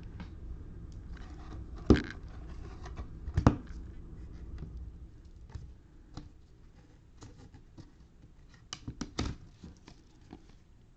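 Trading cards and cello-pack wrappers being handled on a table: scattered clicks, taps and rustles, with two sharper knocks about two and three and a half seconds in and a quick cluster of them later on.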